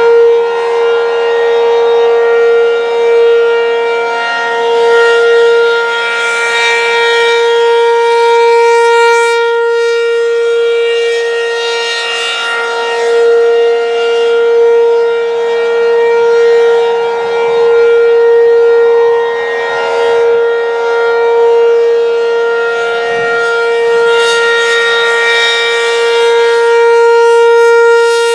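ACA P-15 outdoor warning siren sounding a full test during a tornado drill. It holds one steady, loud tone the whole time, swelling and fading every couple of seconds.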